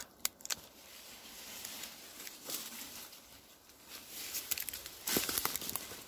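Dry bark crackling and a few sharp clicks as fingers pry a small veiled polypore off a dead pine trunk. Near the end, a denser run of crackling of dry leaves and twigs underfoot.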